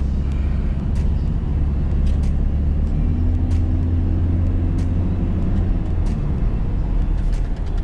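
Road and engine noise inside the cabin of a moving taxi: a steady low rumble, with a faint steady hum partway through and light clicks now and then.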